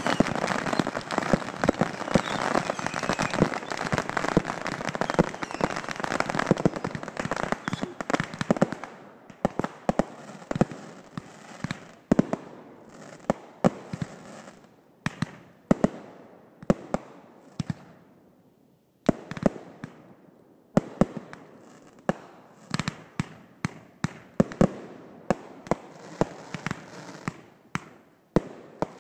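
Massed bottle rockets and other fireworks going off together, set off by a burning trough of kerosene-soaked newspaper. For about the first nine seconds it is a dense, unbroken crackle of bangs. It then thins to separate sharp pops and bangs, a few a second, with short gaps between.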